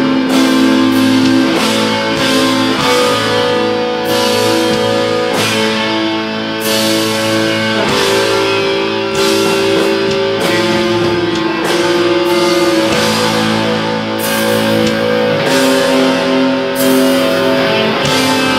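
A black metal band playing live: distorted electric guitars hold long chords that change every second or two, with drums and cymbals underneath.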